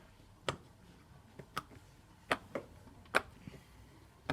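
Silicone Pop It fidget toy's bubbles pressed in one by one with the fingertips, giving short sharp pops, about seven at uneven spacing.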